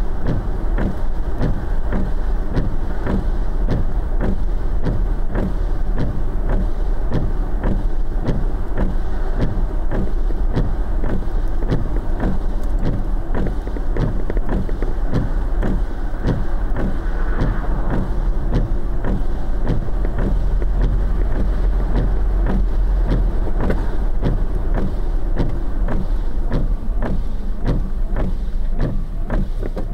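A car driving on a wet road: a steady low rumble with a haze of road noise, and many short, sharp ticks throughout.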